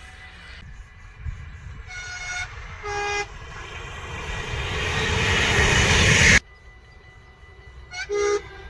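Train horn sounding short two-tone toots, a high note then a lower note, as a train approaches with a rushing noise that grows louder and then cuts off suddenly. Near the end the horn gives another quick high-then-low toot.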